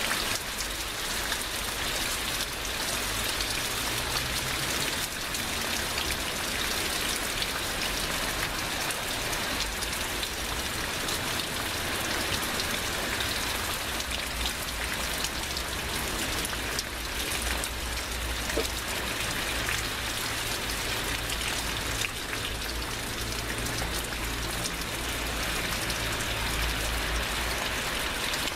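Heavy rain pouring down steadily, with a dense patter of drops striking surfaces over a low rumble.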